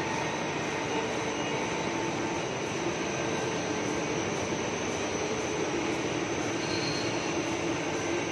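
Three-layer LDPE blown film line running: a steady, unbroken machinery noise of motors and blowers, with a faint high steady whine over it.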